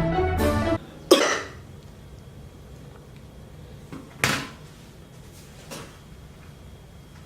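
Background music cuts off about a second in, then a person coughs: two sharp single coughs about three seconds apart, with a couple of fainter sounds between them.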